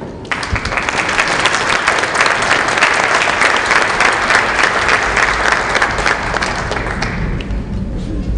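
Audience applauding with many hands clapping, starting just after the start and dying away about seven seconds in.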